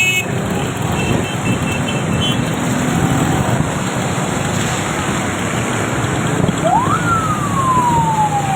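Steady street noise, and about two thirds of the way in a siren that rises quickly in pitch and then falls slowly.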